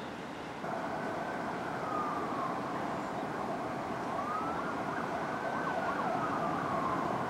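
Steady city traffic noise, joined about a second in by an emergency-vehicle siren whose pitch falls and rises in slow sweeps.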